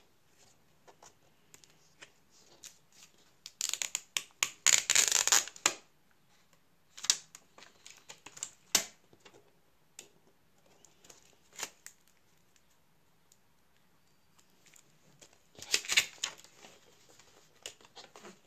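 Hands handling the flat display cable and its tape on a laptop LCD panel: scattered small taps and rustles, with two longer spells of scraping, rustling noise, one about four seconds in and one near sixteen seconds.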